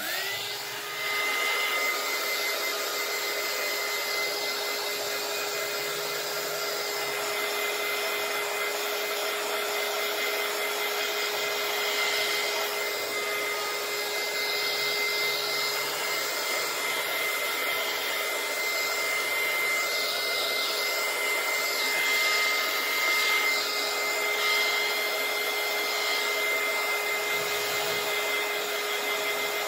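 Small craft heat gun switching on and running steadily, blowing hot air to speed the drying of freshly painted rocks: an even rush of air with a constant motor whine.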